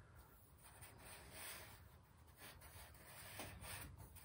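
Faint scratching of a stick of compressed charcoal stroked across newsprint, a few soft strokes in near silence.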